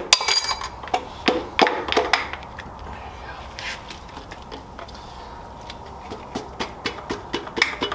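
Metal engine parts and hand tools clinking and knocking as a blown 6.0 LS V8 is taken apart, with one ringing metal clink right at the start and a run of quick light taps near the end.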